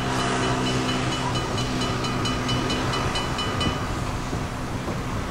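Level-crossing warning bell ringing in quick, even strokes and stopping about four seconds in, while an electric tram rolls across the crossing with a steady low hum.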